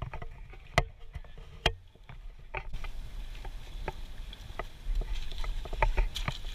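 Scattered sharp clicks and knocks of footsteps and shoes on rock and sand, the two loudest about one and two seconds in. A low wind rumble on the microphone grows stronger near the end.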